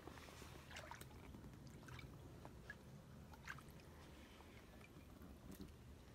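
Near silence: faint outdoor riverside ambience, a low steady hum with a few faint, short high-pitched sounds scattered through it.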